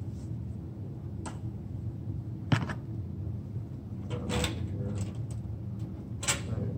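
A few sharp clicks and rattles of hands working wires and connectors inside a sheet-metal fluorescent ceiling fixture, about four over several seconds, over a steady low hum.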